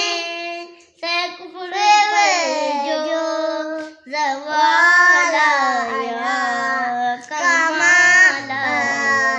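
A young boy singing an Urdu naat unaccompanied, in long held melodic phrases with short breaks for breath about one, four and seven seconds in.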